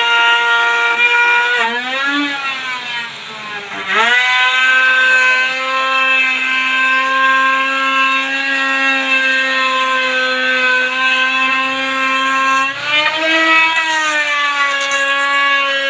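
Handheld electric wood router running with a steady whine as its bit cuts along the edge of a wooden door frame. The pitch wavers under the load of the cut about two seconds in and again about thirteen seconds in.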